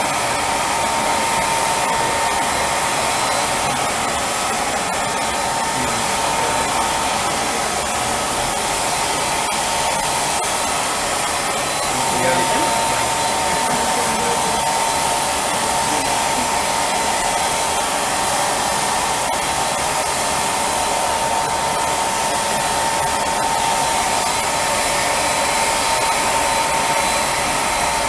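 Handheld blow dryer blowing steadily together with the airflow of a spray-tan gun, drying the tanning solution on the skin as it is sprayed. A steady whine runs through the rushing air and breaks off briefly about twelve seconds in.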